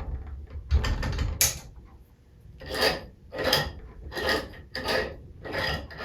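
Metal parts of a home-built four-cylinder compressed-air engine clicking and rubbing as its mechanism is worked: a couple of knocks, then a regular run of short strokes about one and a half a second.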